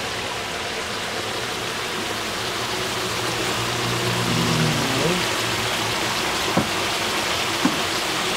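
Catfish stir-fry sizzling steadily in a large steel wok over a gas burner, with two sharp clacks of the metal spatula against the wok near the end.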